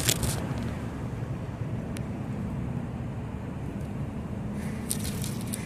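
Steady low mechanical rumble with a faint hum, typical of vehicles or machinery in a workshop. It opens with a short burst of crackly handling noise as the phone is moved, and a few brief clicks come near the end.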